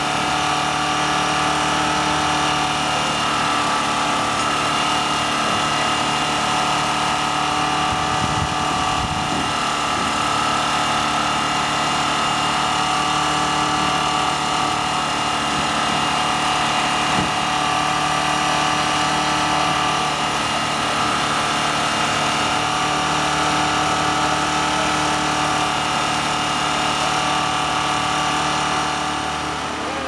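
Steady drone of an engine-driven machine running at constant speed, with a few fixed tones over a noisy hum, easing off slightly near the end.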